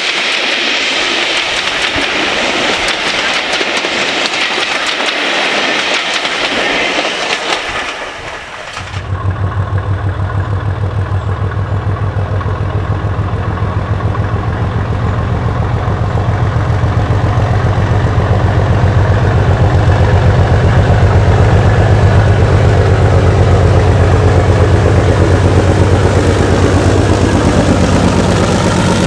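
Passenger coaches rolling past, wheels clicking over the rail joints. Then the Class 37/9 diesel locomotive 37901 'Mirrlees Pioneer' approaches and passes close, its Mirrlees engine running with a steady low note that grows louder as it nears.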